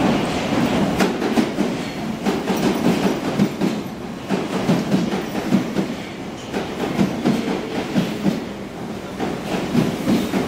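London Underground Piccadilly line 1973 Stock train running slowly alongside the platform, its wheels clattering steadily over rail joints.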